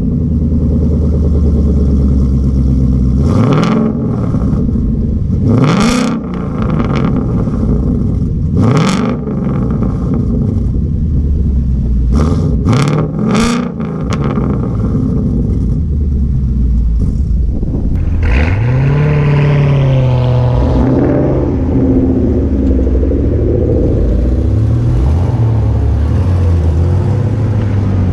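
C7 Corvette Z06's supercharged 6.2-litre V8 idling, blipped to sharp free revs several times, with three quick blips in a row near the middle. About two-thirds of the way in comes a longer, held rev that eases back down to idle.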